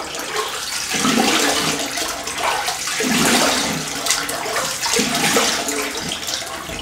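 Bathroom tap running into a sink while rinsing during a wet shave, the splashing swelling about every two seconds.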